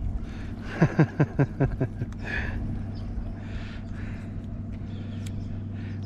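A steady low engine hum, with a quick run of six or so short calls, each falling in pitch, about a second in.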